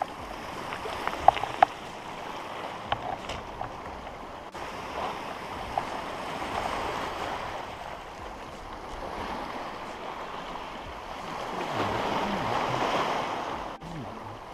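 Small waves washing up and draining over a rocky cobble shore, the surf rising and falling and loudest about twelve seconds in. A few light clicks come in the first few seconds.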